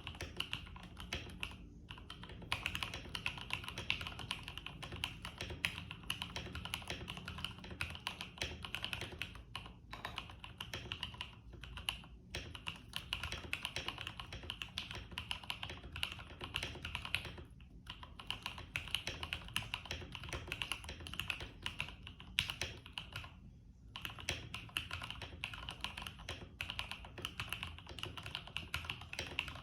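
IK75 keyboard typed on over a desk mat: a steady run of fast key clicks and thocks, broken by a few short pauses.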